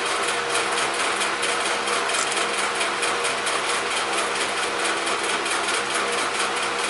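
A steady machine running in the background, an even whirring hiss with a faint hum and a fast flutter.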